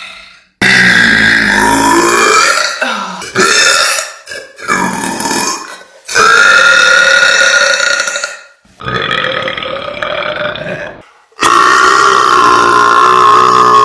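A woman burping loudly, about five long drawn-out burps one after another, each lasting around two seconds with short pauses between.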